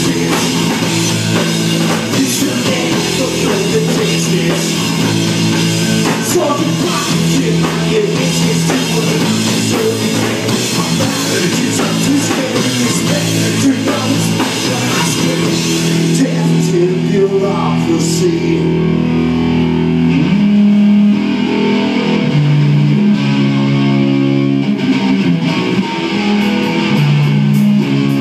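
Live rock band playing: two guitars over a drum kit. About 16 seconds in the drums and cymbals drop out, leaving the guitars playing sustained chords, and the drums come back in near the end.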